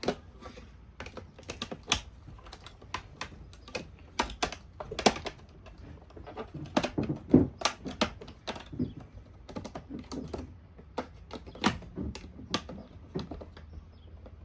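Plastic parts of a Shark vacuum clicking and knocking as its cover is pushed and worked into place: many short, irregular clicks, a few louder knocks among them.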